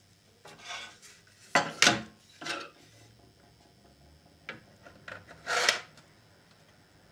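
Handling noise from a small plastic TV set being fitted to its metal desk stand: a few sharp knocks and clicks, the loudest two close together about a second and a half in, and a short scraping sound later on.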